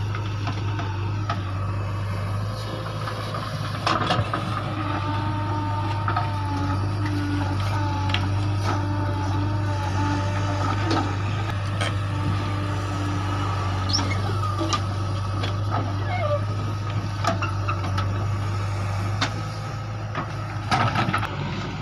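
Diesel engines of a JCB backhoe loader and a Mahindra 575 DI tractor running steadily while the backhoe digs and loads soil into the tractor's trolley. Occasional sharp knocks come from the bucket and stones.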